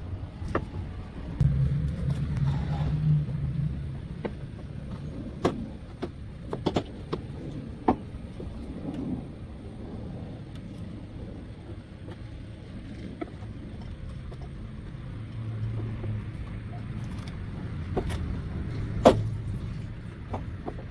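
Plastic side skirt of a Nissan 370Z being pulled off its body clips by hand: scattered sharp clicks and snaps as the clips let go, the loudest one near the end. A low rumble comes and goes underneath.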